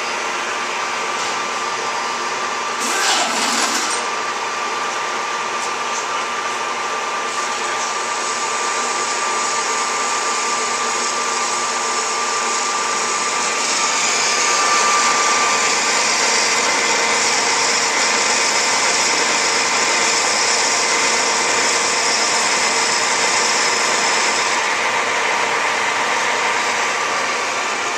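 Metal-turning lathe running with its chuck spinning and the tool cutting a metal workpiece: a steady whir with a thin constant tone. A brief louder noise comes about three seconds in, and a louder, higher cutting sound sets in about halfway and stops a few seconds before the end.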